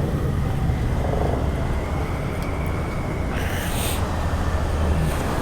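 Motorcycle engine running steadily at a low, even rumble, with a short hiss about three and a half seconds in.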